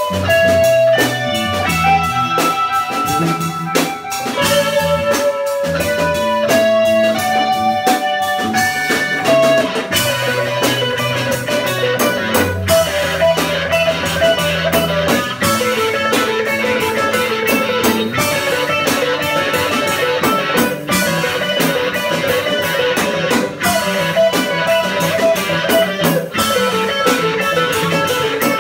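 Live rock band playing: an electric guitar lead over bass guitar and drum kit. The lead holds long bending notes at first, then about ten seconds in turns to a faster, busier run of short repeated notes.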